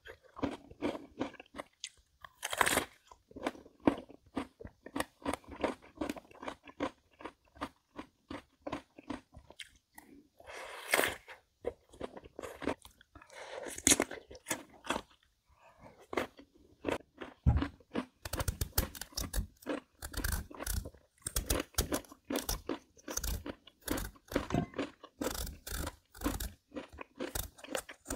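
Close-miked biting and chewing of crisp Korean melon (chamoe): a continuous run of wet crunches, with heavier chewing in the second half.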